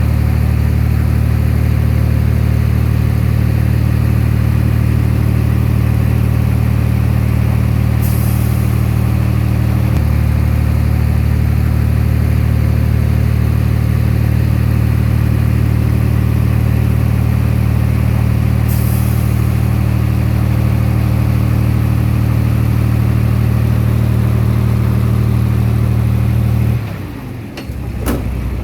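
Komatsu D20P bulldozer's diesel engine running steadily at high throttle, with two brief hisses along the way. Near the end the engine note drops off suddenly and changes.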